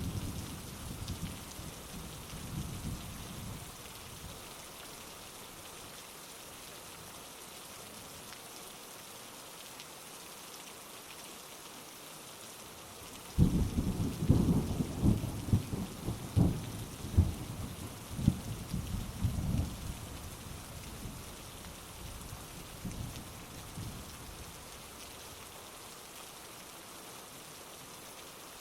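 Steady heavy rain, with a low rumble of thunder fading out over the first few seconds. About halfway through, a sudden loud clap of thunder breaks into rolling rumbles that die away over several seconds.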